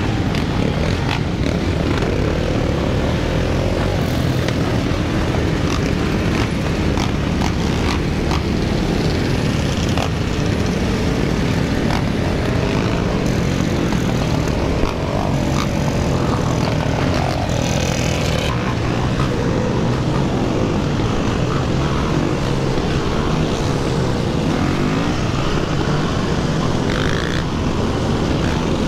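KTM dirt bike engine running on the move, its pitch rising and falling with the throttle, mixed with the engines of the surrounding quads and dirt bikes.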